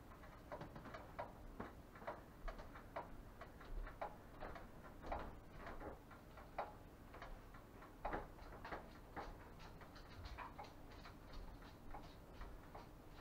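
A stainless steel stockpot of soapy laundry-soap mixture boiling on an electric stove, its bubbles giving faint, irregular popping and ticking, several pops a second.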